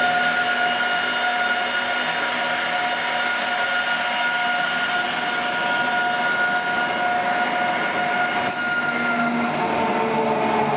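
3000-litre vacuum mixer homogenizer running: a steady mechanical drone with several steady whining tones from its motors. The highest whine fades out near the end.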